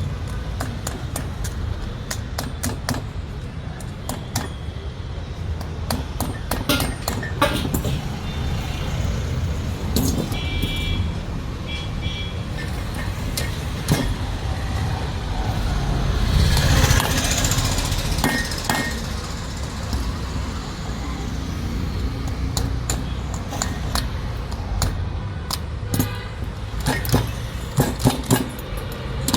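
Repeated sharp metal clinks and taps of hand tools, denser near the start and the end, over a steady low rumble of engines. A louder rush swells briefly about halfway through.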